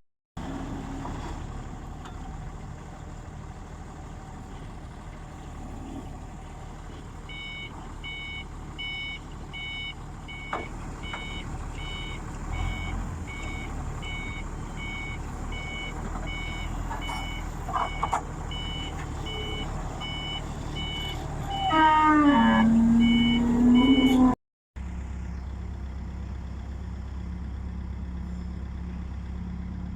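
A vehicle's reversing alarm beeping steadily, a little under twice a second, over a running engine. Near the end a louder tone drops in pitch and holds for about two seconds before the sound cuts off, and an engine hum carries on.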